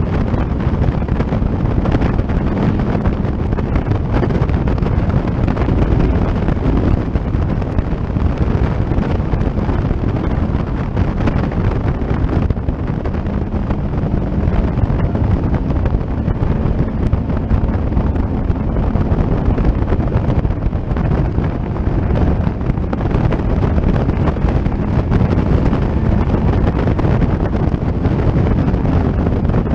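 Caterham Seven race car running at speed, its engine droning steadily under heavy wind buffeting on the open-cockpit microphone.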